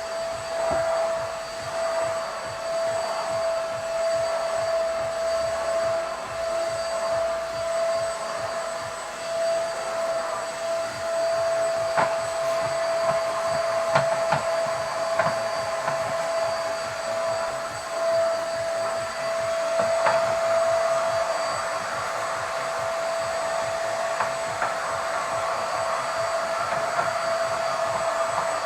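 KT-5105-2 corded upright vacuum cleaner running steadily during floor cleaning: an even motor whine with airflow hiss, and a few sharp ticks around the middle.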